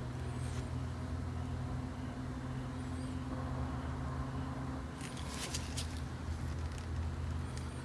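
A steady low mechanical hum, like a motor or engine running, with a few sharp clicks about five seconds in and faint high chirps now and then.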